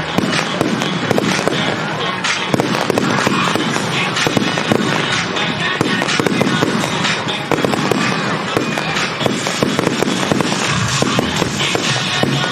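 Aerial fireworks bursting and crackling in rapid, continuous succession, over music played through loudspeakers for a music-synchronised fireworks show.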